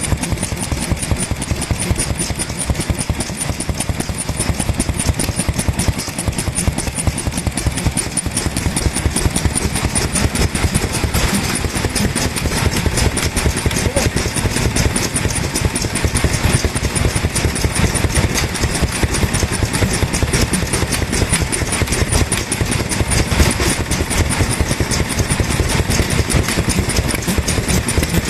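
Daikin stationary oil engine from the early 1950s running steadily, its rapid firing beats even and unbroken.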